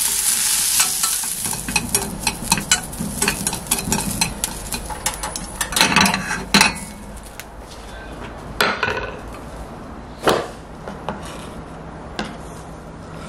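Vienna sausages sizzling in a nonstick frying pan while wooden chopsticks turn them, with many light clicks of the chopsticks against the pan and sausages. The sizzle fades after the first second or two, and the second half holds only a few separate knocks.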